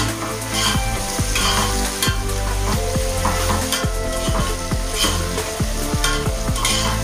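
A metal spoon stirring and scraping chopped vegetables through hot oil in a metal pot, about two scrapes a second, over a steady sizzle of frying.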